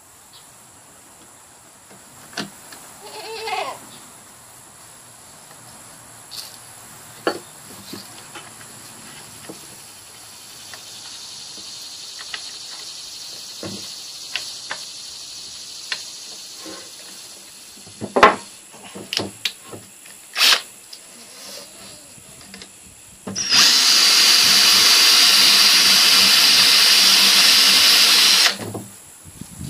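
Cordless drill spinning a round chainsaw file against the chainsaw chain's cutters: a steady grinding whir for about five seconds near the end, the loudest sound, after scattered clicks and taps. A goat bleats once about three seconds in.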